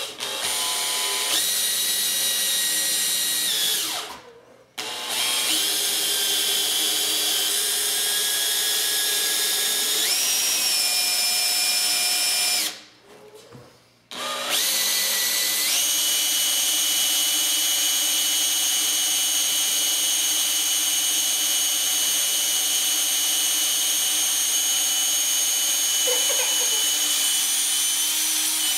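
Cordless drill with a quarter-inch bit boring through a rifle stock, running with a steady whine. It stops briefly about four seconds in and again about thirteen seconds in, and its pitch steps up around ten seconds and again around fifteen.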